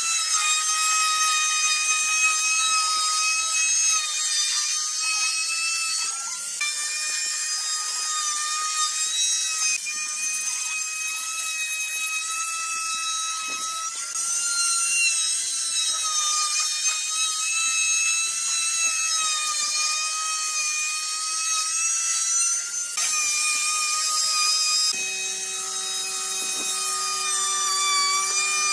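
Electric plunge router running at full speed, a steady high whine, as its bit cuts a groove into a pine panel; the pitch wavers slightly as the bit takes load. A lower steady hum joins near the end.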